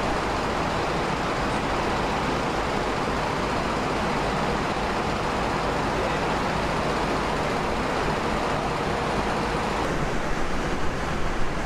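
Steady, even rushing background noise with no distinct events, a little more uneven near the end.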